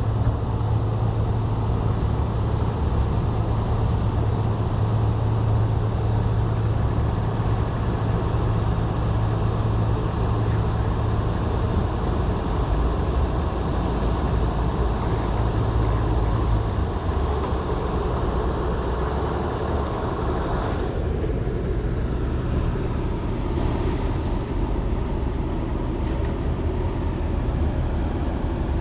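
Heavy diesel engine running, a steady low drone whose tone shifts about two-thirds of the way through.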